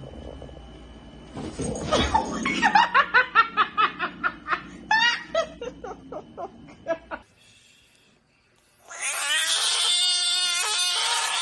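A person laughing hard in a run of short bursts, about four a second, for some five seconds. After a brief break, a frog screaming: one long, steady, high-pitched cry.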